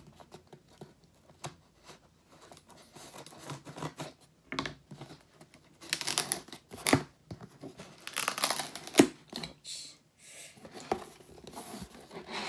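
Cardboard laptop box being opened by hand: tape peeled and torn from the box edge, with scraping and rustling of cardboard. The tearing comes in several louder scratchy bursts from about halfway through, with one sharp snap about two-thirds in.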